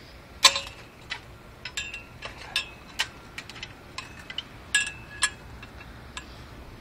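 Irregular sharp clicks and short clinks, a dozen or so, some ringing briefly, over a faint steady hiss.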